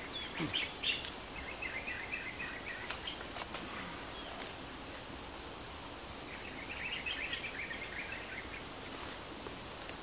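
Rainforest ambience: a steady, high-pitched insect whine, with two bouts of rapid chirping calls, one about a second in and another past the middle. A few faint clicks.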